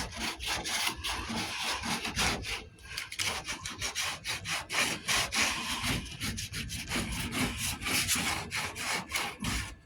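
Hand sanding of body filler on a truck door panel with a sanding board: abrasive paper rasping back and forth in quick, even strokes, about two or three a second, knocking down the high edges of the filler.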